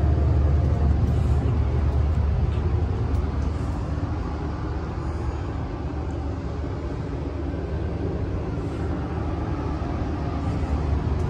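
Steady low hum and rumble inside an Amtrak passenger rail car standing at a station: the car's onboard equipment and the idling train running, dipping slightly in the middle and rising again near the end.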